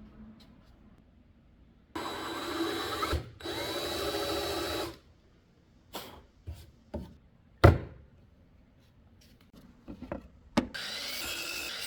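Power tool on wood running in two short runs with a high whine, then several sharp knocks, the loudest a little past the middle, and the tool starting up again near the end.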